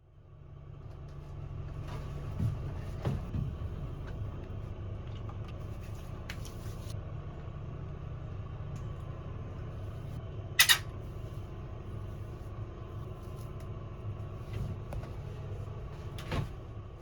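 Steady low rumble of a moving vehicle, with scattered knocks and one sharp click about ten and a half seconds in.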